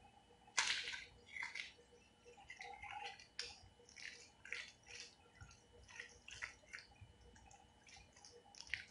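A hand squeezing and mashing roasted aubergine with chopped onion and coriander in a plate: irregular, faint wet squishing and clicking, the loudest about half a second in.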